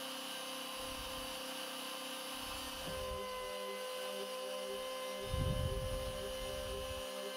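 Homemade CNC router's spindle running with a steady whine as a 3 mm upcut spiral bit mills a slot in wood. Three brief lower rumbles come through, the loudest about five and a half seconds in.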